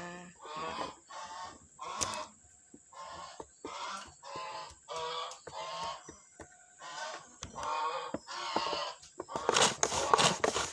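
Geese honking over and over, a long run of short calls about two a second. Near the end, rapid scraping strokes start as shallots are pushed across a wooden hand slicer.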